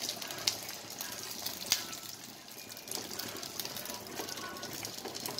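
Stuffed capsicums shallow-frying in oil in a pan on a low flame: a steady sizzle with crackling pops, the sharpest about half a second and nearly two seconds in.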